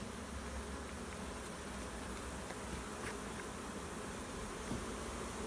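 Steady, dense buzzing of a large honeybee swarm, many loose bees in flight around a box that the swarm has just been shaken into.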